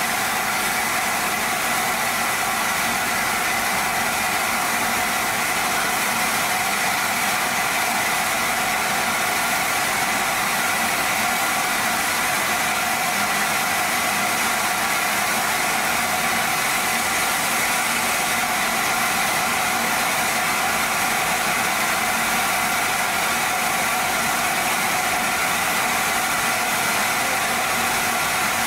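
LNER A4 class steam locomotive No. 4498 standing with steam hissing steadily from it, with a steady whine mixed into the hiss throughout.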